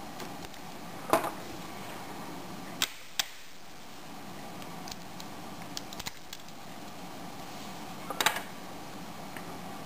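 Small clicks and taps of the Creative Zen Micro's plastic casing and daughter board being handled as the board is unscrewed and lifted out: a pair of sharp clicks about three seconds in and a quick run of clicks near the end, over steady background hiss.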